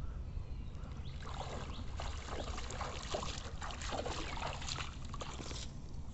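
Legs wading through knee-deep water, a run of irregular splashes and sloshes that starts about a second in and stops shortly before the end, over a steady low rumble.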